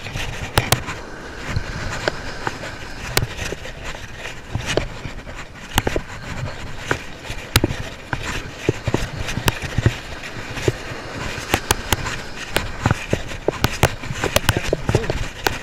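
Conventional saltwater reel being cranked to bring in a hooked fish, giving many irregular clicks and knocks. Steady wind noise rumbles on the microphone beneath.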